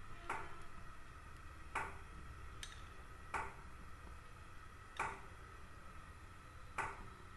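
Metal ladle clinking against the oil bowl and the kadhai while refined oil is ladled into the pan: about six light clinks a second or two apart, each with a short ring.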